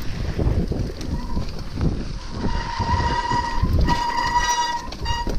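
Bicycle brakes squealing in a high, steady tone that starts about a second in and breaks off and resumes a couple of times as the brakes are applied, over wind and trail rumble while riding.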